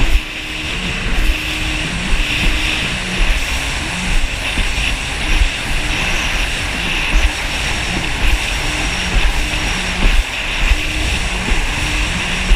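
Yamaha jet ski's engine running steadily at speed, with rushing water and wind noise and irregular low thumps as the hull hits the waves.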